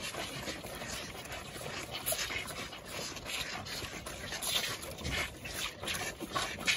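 A row of calves slurping and lapping milk from an open trough feeder: a continuous, irregular run of short wet sucking and lapping sounds.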